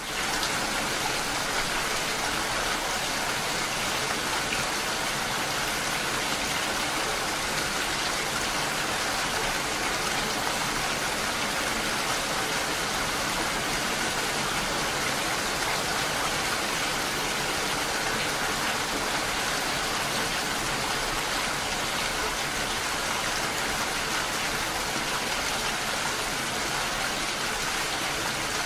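Steady rain falling, an even, unbroken hiss of raindrops.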